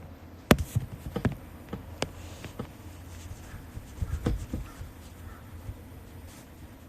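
A few scattered light clicks and taps, the sharpest about half a second in and a small cluster around four seconds in, over a faint steady low hum.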